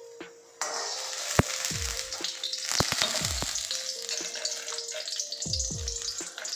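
Hot sesame oil sizzling around roasted dried red chillies and spices, with a few sharp clinks of a steel perforated ladle against steel.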